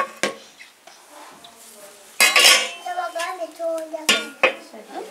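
A wooden spatula stirs and scrapes chunks of beef in a metal cooking pot, knocking against the pot several times. The loudest scrape comes a little over two seconds in.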